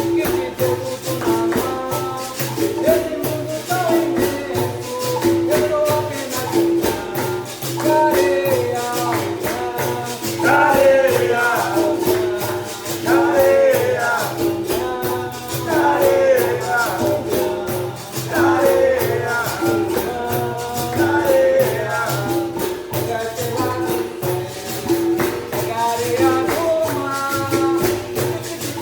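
Capoeira music: a berimbau with caxixi rattle and a pandeiro keep a steady rhythm while voices sing a song over it, the singing growing stronger about ten seconds in.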